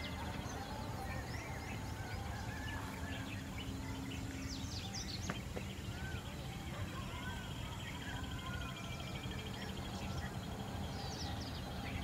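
Wild birds calling in scrub woodland: many short chirps and brief whistled notes, some rising and falling, with a fast even trill for a few seconds in the middle. A steady low background noise runs underneath.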